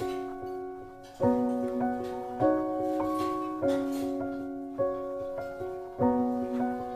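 Background piano music: notes and chords struck at a slow, even pace, each ringing on until the next.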